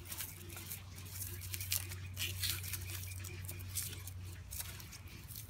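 Plastic food wrap crinkling in quick, irregular crackles as a tube of it, filled with black powder, is rolled and squeezed tight by hand to make a slow fuse. A steady low hum runs underneath.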